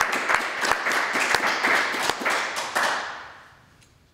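Applause with individual hand claps standing out, dying away about three seconds in.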